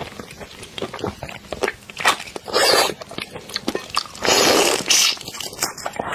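Close-miked eating of a large boiled red shrimp: the shell crackles and clicks as it is pulled apart and bitten, with loud sucking at the shrimp about two and a half seconds in and again for about a second later on.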